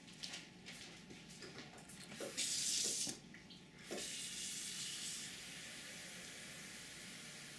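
Water running from a tap: a few light clicks at first, then a short gush about two seconds in that stops, and a steady flow from about four seconds in.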